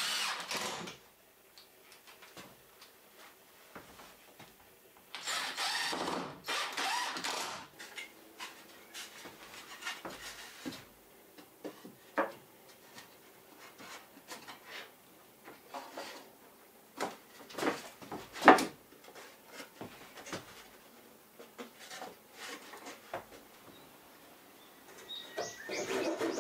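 Cordless drill driving screws into wooden wall boards in two short runs, the first stopping about a second in and the second lasting about two seconds. Then scattered knocks and taps of wood and tools, with one sharp knock over halfway through, and a steady scraping sound starting near the end.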